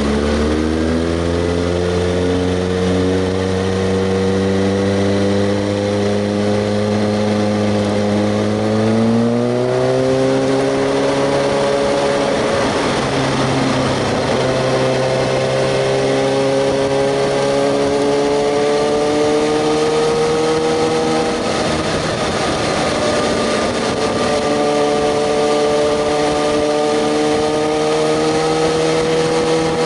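Kawasaki ZX-6R 636's inline-four engine running under way, its pitch climbing slowly as it pulls, with a steeper rise about ten seconds in, over a steady rushing noise.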